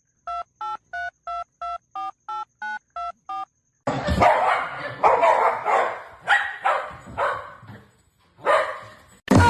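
About ten quick electronic beeps like phone keypad tones. Then, from about four seconds in, a dog barks over and over in loud bursts.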